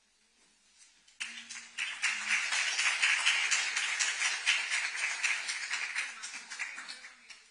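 Audience applauding, starting about a second in and fading away near the end.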